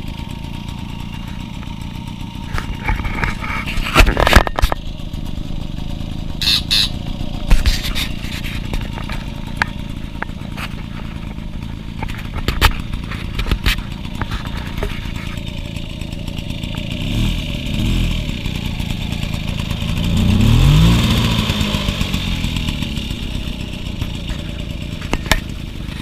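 1974 Mobylette Mobymatic 50V moped's small two-stroke single-cylinder engine running steadily. It is revved up and let back down twice in the second half, the second rev the longer and louder, and there are a few sharp knocks in the first half.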